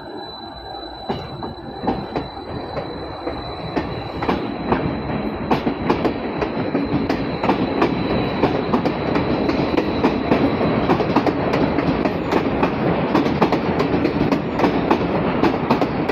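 Athens Metro Line 1 electric train, a Siemens/Bombardier 11th-batch set, pulling out and accelerating past. It grows louder from about four seconds in, and its wheels clack over rail joints and points ever more often. A thin, high steady whine fades out about two-thirds of the way through.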